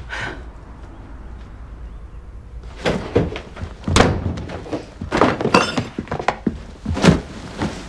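A run of thuds and knocks, footsteps and a bedroom door being pushed shut, starting about two and a half seconds in and going on for about five seconds.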